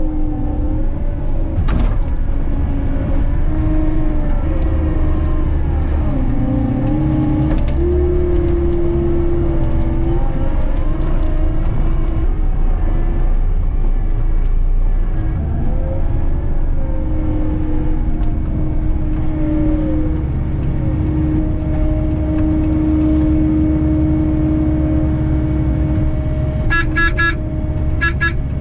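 Skid steer engine running, its pitch wavering up and down as it works. Near the end its backup alarm starts beeping rapidly.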